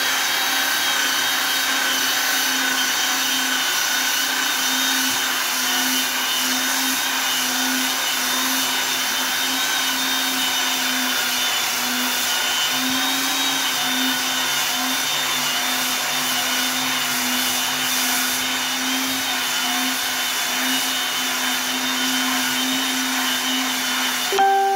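Handheld belt sander with an 80-grit belt running steadily as it is pushed along a wooden board: a constant motor whine over the hiss of the belt on the wood.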